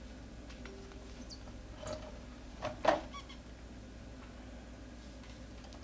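A few light clicks and small knocks from handling parts and tools on the scooter, with one sharper knock about three seconds in, over a low steady hum.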